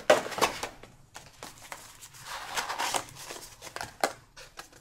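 Packaging being handled: rustling and crinkling, with a few sharp knocks as items are moved.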